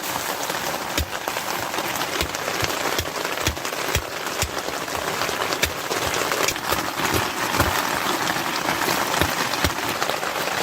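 Heavy rain falling steadily, with many sharp drop impacts heard through it.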